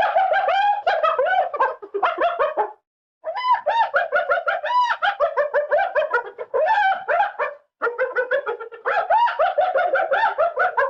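Cartoon sound effect of rapid, bird-like chattering calls: three runs of quick rising-and-falling pitched notes, several to the second, separated by short pauses.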